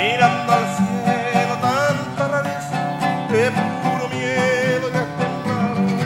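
Acoustic folk song played on guitar: strummed chords in a steady rhythm, with a sliding, wavering melody line above them, captured at a distance on a camcorder's built-in microphone.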